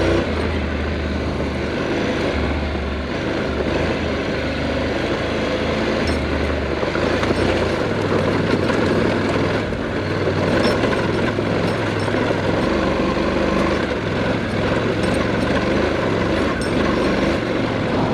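Motorcycle engine running steadily while the bike is ridden over a dirt trail, with a continuous rumble and a low note that shifts every second or so.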